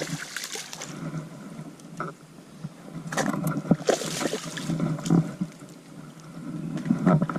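Water splashing and sloshing in irregular bursts, loudest about three to four seconds in, with scattered knocks: a hooked largemouth bass thrashing at the surface as it is fought in to the bank.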